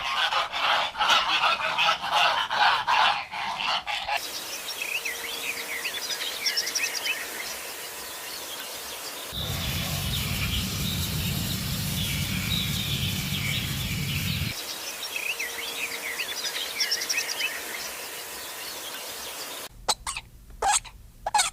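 Birds calling: a dense run of calls at first, then many short chirps over a steady hiss, with a low rumble in the middle stretch. A few sharp knocks near the end.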